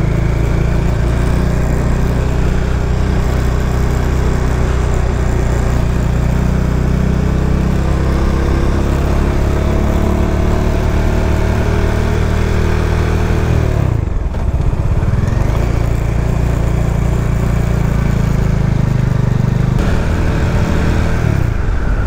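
Bajaj Dominar 400's single-cylinder engine running under way, its note rising slowly as the bike gathers speed, dipping briefly about fourteen seconds in, then picking up again, over wind and road noise.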